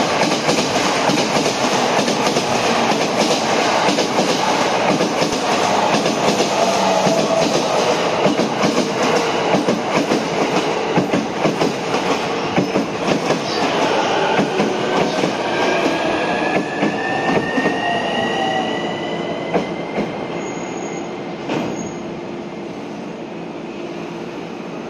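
JR East E231 series commuter train running into a station at speed: a loud rush of wheel noise with rapid clatter over the rail joints. From about 14 seconds in, a thin whine rises slowly in pitch while the noise dies away as the train brakes toward a stop, with a single knock near the end.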